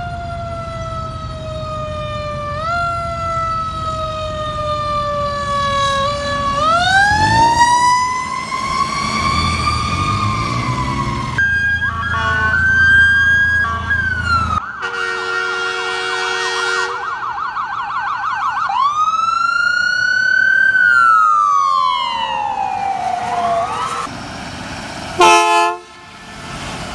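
Federal Q mechanical siren spinning up and slowly winding down, its pitch gliding up and down in long sweeps, with a fast-warbling siren in the middle. Near the end comes a short, loud horn blast.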